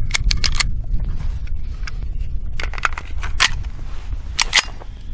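Metallic clicks of .45 ACP cartridges being pressed one by one into a Hi-Point pistol magazine, then two sharper clacks about four and a half seconds in as the pistol is handled and loaded. Low wind rumble on the microphone runs under them.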